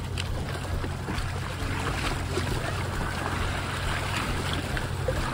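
River water lapping and splashing against the bank, over a steady low rumble.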